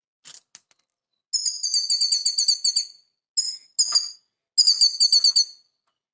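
Grey-headed goldfinch singing: four phrases of rapid, high twittering trills with short pauses between them. A few faint clicks come just before the first phrase.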